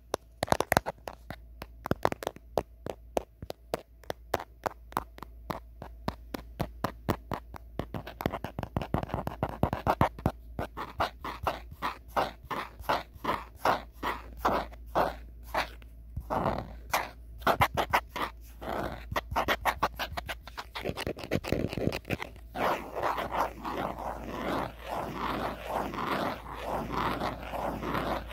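Natural fingernails tapping quickly on the back and camera of an old phone, the taps light at first and getting louder about a third of the way in, turning into busier scratching near the end.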